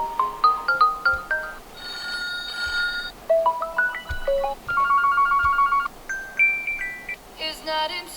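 Default ringtone of a Huawei Y11i smartphone playing: a bright electronic melody of short runs of rising notes alternating with held chords.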